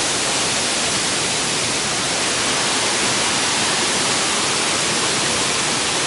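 Waterfall in full flow: a steady, even rush of falling water.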